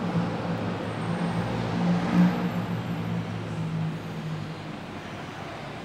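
A motor vehicle's engine hum, swelling to its loudest about two seconds in and fading away after about four seconds, as of a vehicle passing.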